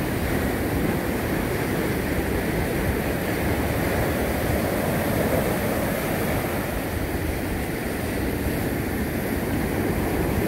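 Ocean surf washing steadily on the beach, a constant low rumble and hiss without breaks.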